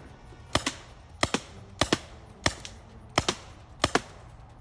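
Paintball gun firing a string of shots, about six in quick succession, roughly two-thirds of a second apart; each shot is a sharp double crack.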